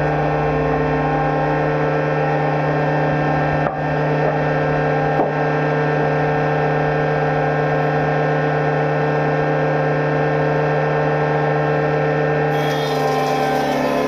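Woodworking machine motor in a sawmill running steadily at full speed, giving a constant pitched hum, with two faint clicks near the start.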